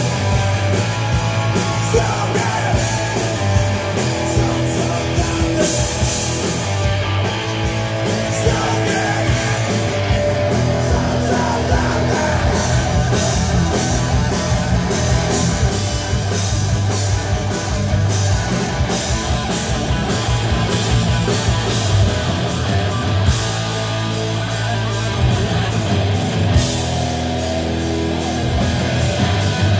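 Live rock band playing loud hard rock: electric guitar and bass over a steady drum beat, with dense cymbal and drum hits throughout.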